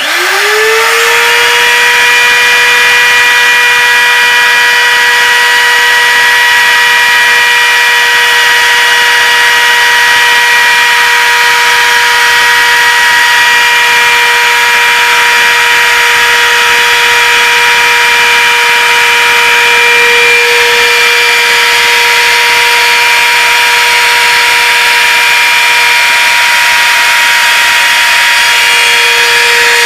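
Electric router motor switched on, spinning up within about a second to a steady high-pitched whine. It then runs steadily while its small bit cuts a groove into a wooden oval frame blank.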